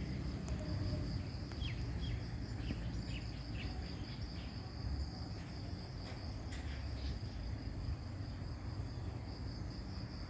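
Steady, pulsing high-pitched insect trill, with short bird chirps scattered through the first few seconds and again about seven seconds in.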